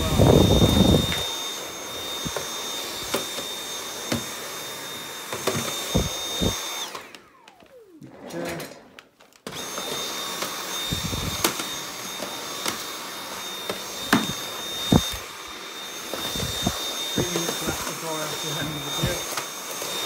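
Dyson V8 Absolute cordless stick vacuum running with its fluffy soft-roller head on a wooden floor: a steady high whine over airflow hiss, nice and quiet, with scattered knocks. About seven seconds in the motor cuts out and winds down with a falling whine, then starts again abruptly some two and a half seconds later.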